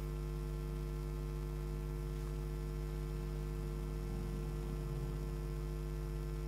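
Steady electrical mains hum: a low buzz with a row of higher overtones.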